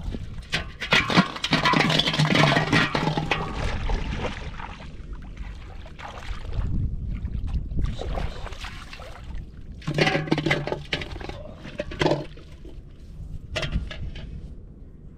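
Shallow river water splashing as a hooked fish thrashes on the line. The splashing is loudest from about one to four seconds in, with shorter bursts of splashing later.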